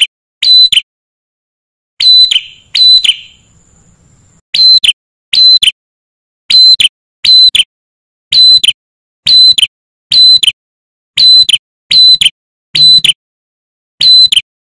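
Male ashy tailorbird singing: a loud, piercing note repeated over and over, about two a second, often in pairs with short pauses between.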